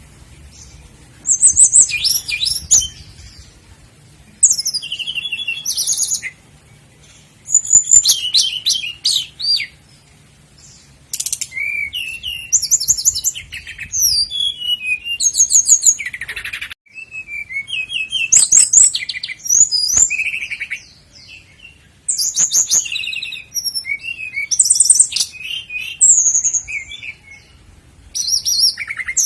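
Common nightingale singing: a run of short, varied phrases of rapid repeated notes, trills and whistles, each phrase a second or two long with brief pauses between.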